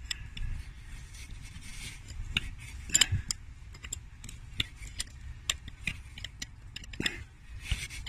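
Steel tools clicking and scraping against each other and the metal of the cylinder head as a Land Rover Td5 unit injector is levered upward with an Allen key hooked under it: a string of small sharp metallic clicks, the sharpest about three seconds in.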